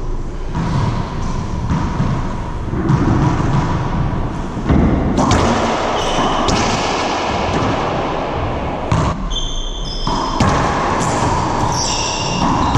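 Racquetball rally: the ball hitting the racquets, the front wall and the floor in a run of sharp smacks that ring around the enclosed court, with sneakers squeaking on the hardwood floor a few times in the second half.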